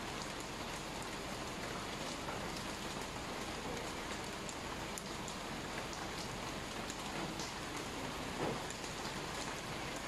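Steady rain falling on a wet tiled patio and garden, a continuous even hiss with scattered drips.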